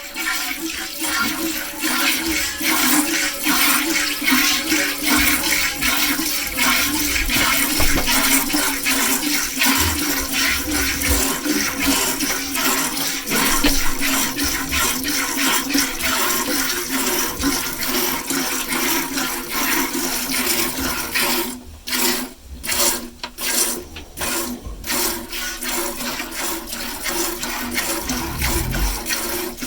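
Hand milking: streams of milk squirting into a pail in a fast, steady rhythm with a hissing, watery sound. The squirting breaks off in a few short pauses about 22 to 25 seconds in.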